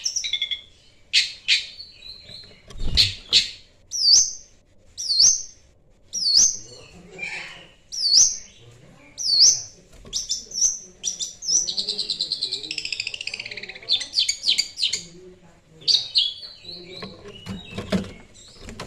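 Long-tailed shrike (cendet) singing: a run of sharp, high, dipping whistled notes about one a second, a fast trill near the middle, and harsh chattering notes between.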